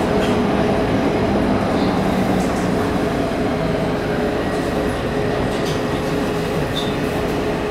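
Taipei Metro train running along the track, heard from inside the passenger car: a steady rumble of wheels and running gear with a constant hum and a few faint clicks.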